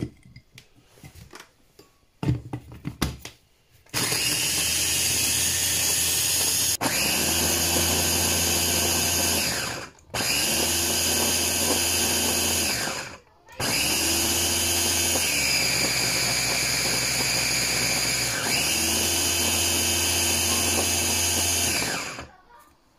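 Electric mini chopper motor grinding ladyfinger biscuits into fine crumbs, running in three long bursts with two short breaks. A few light clicks of the bowl and lid come first; the motor starts about four seconds in, and during the last burst its pitch dips for a few seconds before rising again.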